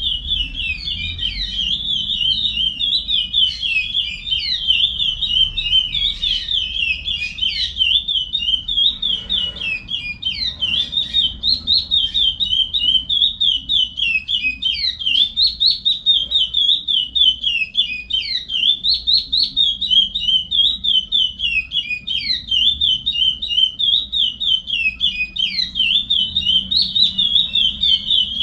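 Curió (chestnut-bellied seed finch) singing the Paracambi song type: a long, unbroken run of fast, high whistled notes that rise and fall around the same pitch.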